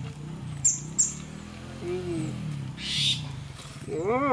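People chewing and smacking on mouthfuls of fried fish and omelette, under a low murmur of voices. About a second in come two short, high, falling bird chirps, and near the end a brief rising-then-falling vocal sound.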